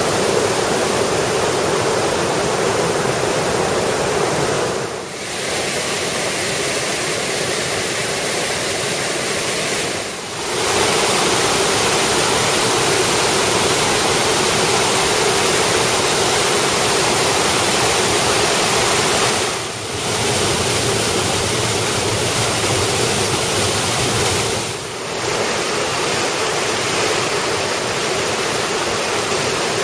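Creek in flood, swollen by heavy rain: whitewater rushing over rock ledges and cascades in a loud, steady rush of water. The sound drops briefly four times.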